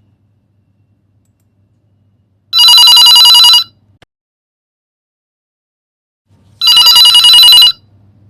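Telephone ringing for an incoming call: two rings, each a loud, fast trill lasting about a second, about four seconds apart.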